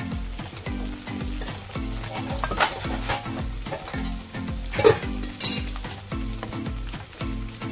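Food sizzling as it fries in hot oil, with a few sharp utensil knocks, the loudest about five seconds in. Background music with a steady, repeating bass beat plays throughout.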